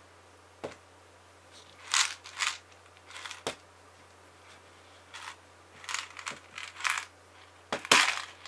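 Clear plastic jar of small wasabi rice crackers being handled and turned: fingers gripping and rubbing the plastic while the crackers shift and rattle inside, in short uneven bursts with a few sharp clicks. The loudest rattle comes near the end as the jar is tipped onto its side.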